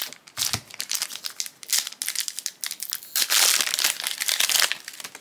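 Foil trading-card booster-pack wrapper crinkling and crackling as it is handled, densest and loudest near the end.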